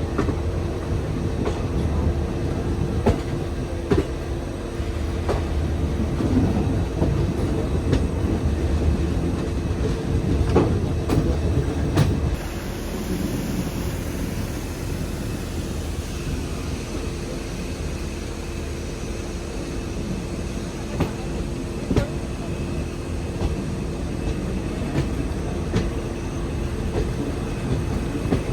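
Passenger train running, a steady low rumble and hum with irregular clicks and knocks of wheels over the rails. It turns a little quieter about twelve seconds in.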